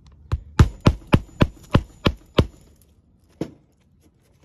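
Claw hammer striking beneath a lifted asphalt shingle tab: eight quick sharp blows, about three a second, then a single blow a second later.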